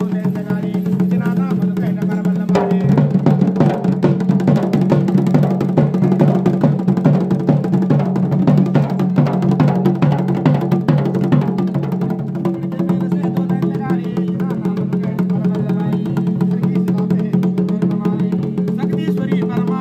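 Music with fast, dense drumming over a constant low drone; a voice comes in near the end.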